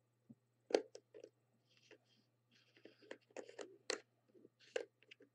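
OBS Engine RTA's tank section being turned and screwed onto its base by hand: irregular soft clicks and scrapes of small metal parts, with the notches seating.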